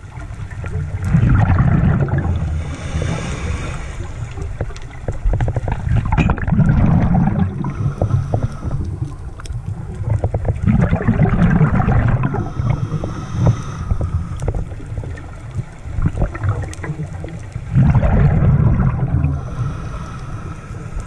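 Scuba diver's regulator breathing, heard underwater: four exhalations, each a burst of bubbling and crackling lasting two to three seconds, coming about every five seconds, with a faint hiss in between.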